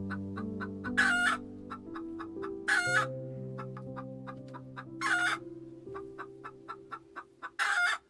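Chicken giving four short, loud calls about two seconds apart, over background music with sustained low notes.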